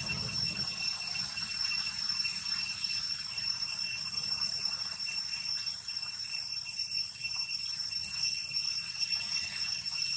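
Steady, high-pitched insect drone, like cicadas, holding one unchanging pitch throughout, over faint outdoor background noise.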